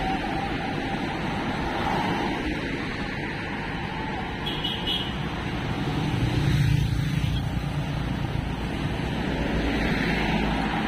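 Steady road-vehicle noise, a rumble of engine and tyres, that swells for a moment about six to seven seconds in.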